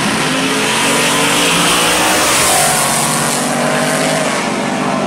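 A first-generation Chevrolet Camaro and a 1955 Chevrolet launching off the drag-strip starting line side by side. Both engines are loud at full throttle as the cars accelerate hard down the quarter mile.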